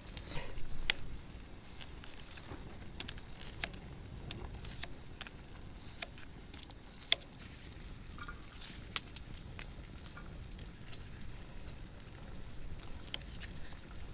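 Knife slicing potatoes on a plastic cutting board: irregular sharp taps as the blade meets the board, over a faint steady sizzle of bacon frying.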